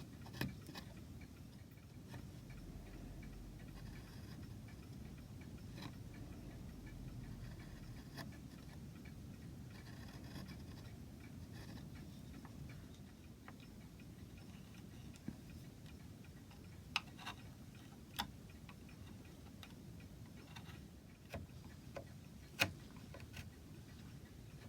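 Scattered light, sharp clicks and taps of hand tools and small wood pieces being handled at a workbench, irregularly spaced and clustered in the second half, over a steady low hum.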